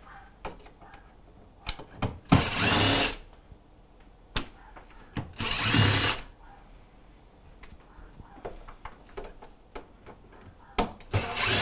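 Cordless drill with a Phillips bit backing screws out of a refrigerator's plastic interior back panel: three short bursts of the drill, each under a second, with small clicks and knocks of handling between them.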